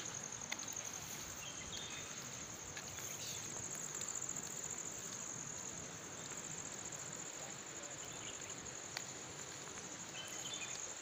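Steady high-pitched trilling chorus of insects over a soft outdoor hiss, with a single sharp click about half a second in.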